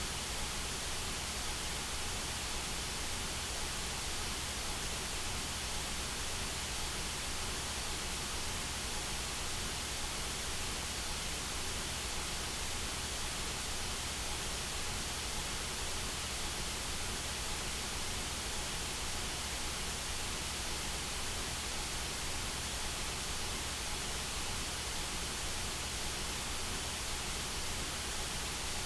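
Steady synthetic white noise: an even, unchanging hiss spread across all pitches, with no events or changes, played as a masking sound for tinnitus relief.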